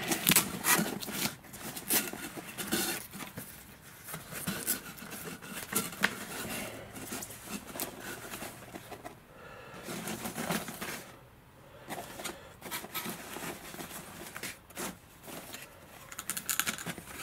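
Handling noise from a foil-faced padded wing cover: tape being peeled off and the crinkly foil material rustling and scraping as a sailplane wing is slid out, with irregular clicks and rubs.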